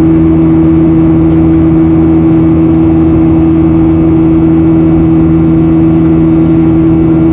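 The CFM56 engines of a Boeing 737-800 in the climb, heard inside the cabin: a steady, loud drone with a few strong held tones over a constant rumble, the engines' buzzsaw sound.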